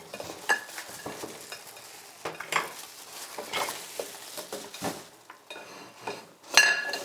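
Kitchen handling noises while onions are readied for slicing: scattered light taps and dry rustling, with a sharp ringing clink about six and a half seconds in.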